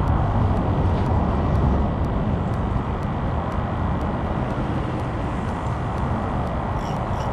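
Wind buffeting the microphone outdoors: a steady rushing noise with a choppy low rumble.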